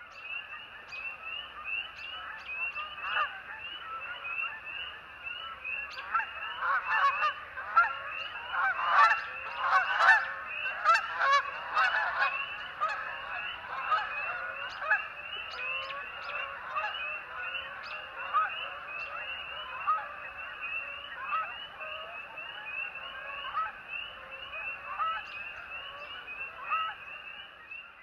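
A flock of Canada geese honking, many overlapping calls, busiest and loudest about a quarter to halfway through and thinning out after. A steady high buzz runs underneath.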